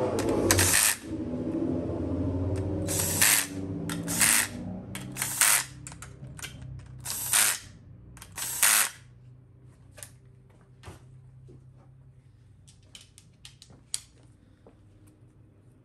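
Cordless DeWalt driver running bolts down into a GM TH350 transmission's valve body, the motor whirring in runs broken by several short, harsh bursts over the first nine seconds. After that come only a few light metallic clicks.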